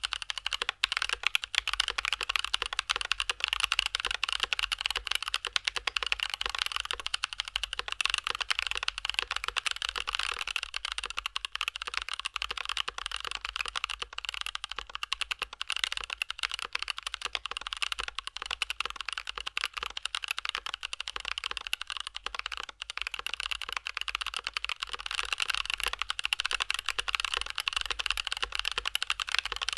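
Continuous fast typing on a mechanical keyboard with Gazzew Boba U4T tactile switches in a foam-dampened Tokyo60 v4 case with an aluminum plate: a dense, unbroken run of thocky keystrokes.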